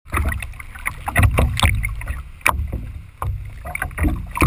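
Water splashing and slapping against a kiteboard as it skims the surface, in irregular sharp hits over a constant low rumble of wind and water buffeting the board-mounted camera.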